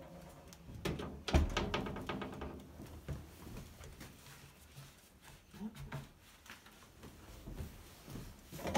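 Kitchen handling sounds: one sharp thump about a second and a half in with a short ring after it, then soft, scattered knocks and rustles as dough is worked and handled.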